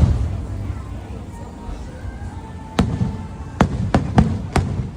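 Fireworks shells bursting in the sky. A loud bang right at the start leaves a low rumble, then five sharp bangs come from about three seconds in, closer together toward the end.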